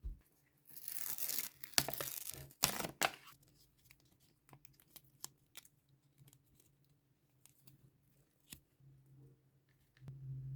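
Packaging being torn open by hand: a ripping sound lasting about two and a half seconds, starting just under a second in, followed by scattered light clicks and taps from handling.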